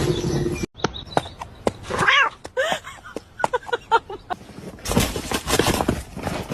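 A cat meowing several short times, mixed with scattered clicks and knocks, and a burst of rustling noise near the end.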